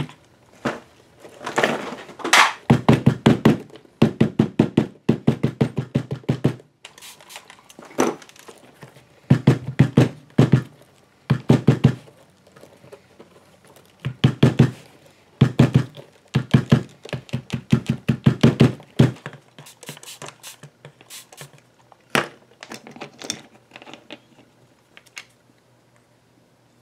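A round-headed mallet tapping on a leather bag laid on a cutting mat, in quick runs of dull knocks that last about a second each with short pauses between them. The taps stop about 19 seconds in, followed by a few lighter, scattered knocks.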